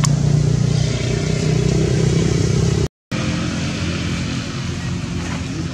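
A motor engine running steadily with a low, even hum. It cuts out briefly about three seconds in, then carries on.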